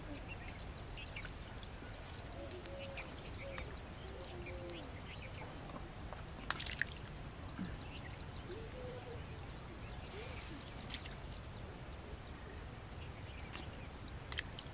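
Quiet outdoor ambience of a still pond: a steady high-pitched insect drone, faint distant voices, and a few small water drips or light splashes, the clearest about six and a half seconds in and again near the end.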